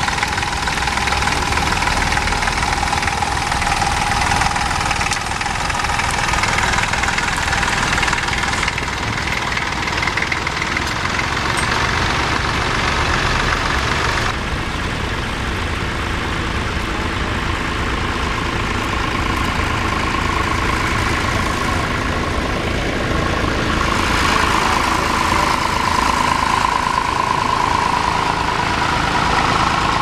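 Vintage tractor diesel engine running steadily under load while pulling a plough: a small Fordson Dexta. The sound changes abruptly about fourteen seconds in, and tractor engine noise carries on after the change.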